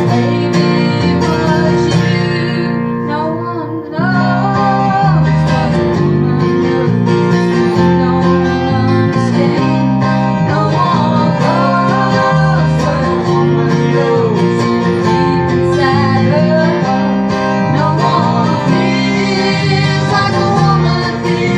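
Live music led by strummed acoustic guitar, with a brief drop in volume about four seconds in before it comes back at full level.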